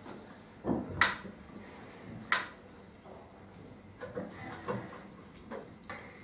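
Paper cards being slid and placed on a wooden tabletop, with a few sharp knocks on the table. The loudest knock comes about a second in and another just over two seconds in, with softer taps later.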